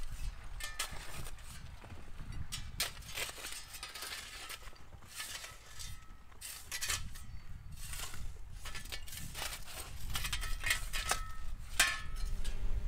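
Irregular knocks and clinks of construction work, several a second, over a low rumble of wind on the microphone.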